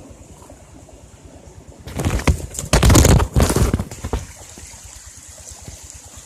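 Water splashing and sloshing loudly for about two seconds, over a steady background of surf.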